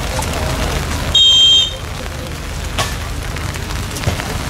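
Referee's pea whistle blown once, a short shrill blast of about half a second, over steady crowd noise, followed about a second and a half later by a single sharp smack.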